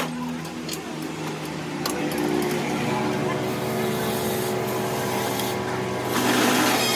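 Metal lathe running with a steady motor hum that grows stronger about two seconds in. A louder hissing rush comes in near the end.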